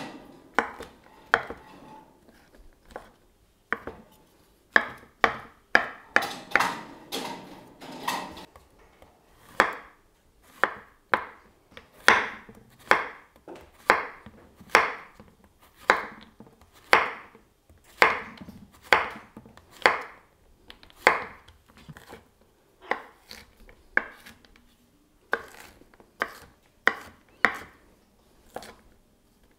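Stainless steel kitchen knife chopping vegetables, a steady series of sharp knocks roughly one to two a second, with a short pause near the end.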